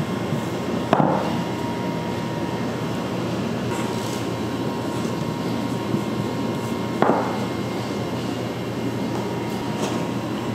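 Steady machine hum with a faint high whine, typical of bakery workroom equipment, with two sharp knocks, one about a second in and one about seven seconds in.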